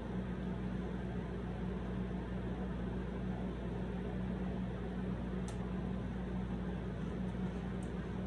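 A steady low machine hum that does not change, with a single light click about five and a half seconds in.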